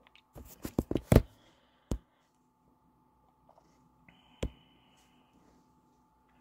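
A cluster of sharp clicks and taps, loudest about a second in, then single clicks about 2 seconds and 4.5 seconds in, as a screenshot is taken on a device. A faint high steady tone sounds briefly between about 4 and 5 seconds.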